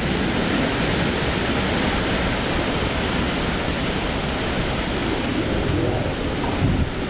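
Typhoon rain and wind making a steady, dense rushing noise.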